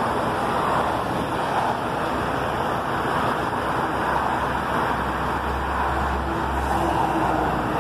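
Steady road traffic noise, with a heavy flatbed truck's low engine rumble that grows louder from about five seconds in as it comes alongside.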